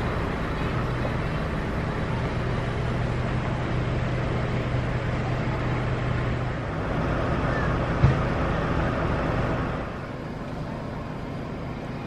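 A motor engine running steadily: a low hum with a noisy wash over it that eases off about ten seconds in. A single sharp click about eight seconds in.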